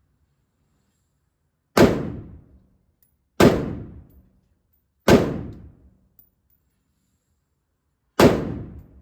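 Four gunshots at uneven intervals, the last two about three seconds apart, each ringing out and fading over about a second. They are fired during a malfunction drill, with spent casings mixed into the magazine to force jams between shots.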